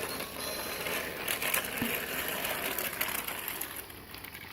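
Battery-powered VTech Go Go Smart Wheels toy train running along its plastic track: a small motor whirring with a fast, steady rattle.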